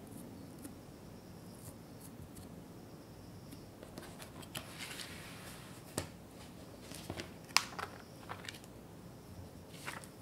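Quiet handling sounds of hands fitting chocolate tart dough into a stainless steel tart ring on a silicone baking mat: soft dough and mat contact, a brief rustle about halfway, and a few light clicks, the sharpest about three-quarters of the way through.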